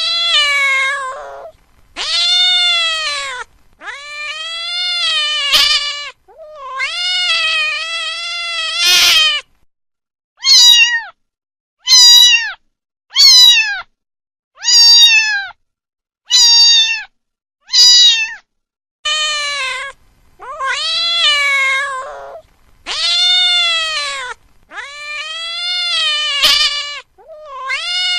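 A domestic cat meowing over and over, about fifteen meows. Long drawn-out calls that rise and then fall open and close the sequence, with a run of six short, quick meows in the middle.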